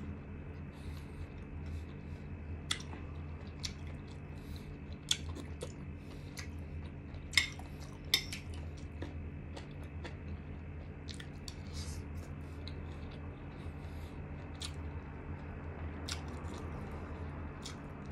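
A person chewing and eating chicken halang-halang, with wet mouth smacks and short sharp clicks, like a utensil tapping a bowl, scattered throughout; the loudest are about seven and eight seconds in. A steady low hum runs underneath.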